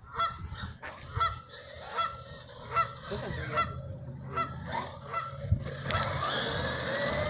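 Canada geese honking in alarm, short calls about once every 0.8 seconds, reacting to the RC truck. About six seconds in, the Traxxas Maxx's brushless electric motor takes over with a rising whine as the truck accelerates.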